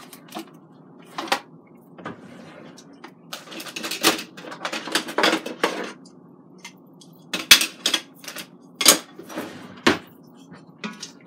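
Kitchen handling clatter: a string of sharp clicks and knocks as utensils and containers are picked up and set down on a countertop. It is busiest around the middle, with three loud sharp knocks in the last few seconds.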